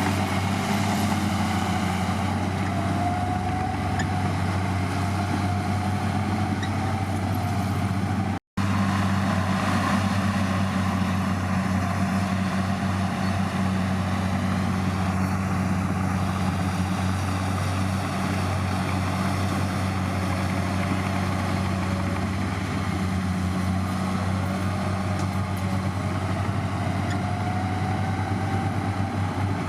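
Heavy diesel engine of earthmoving equipment running steadily, with a fainter whine that slowly rises and falls. The sound cuts out completely for a moment about eight seconds in.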